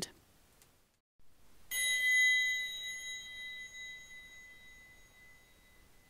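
A metal triangle struck once, about two seconds in, ringing with a high, bright tone that slowly fades away.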